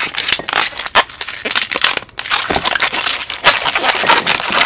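Pink 160 latex modelling balloon being rubbed and twisted by hand into small pinch-twist bubbles, making a dense, irregular crackling of latex against fingers and against itself.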